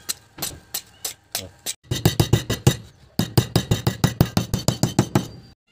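Sharp knocks about three a second, then quicker hammer blows on a wooden strip over a plywood board, about six a second, with a short pause midway.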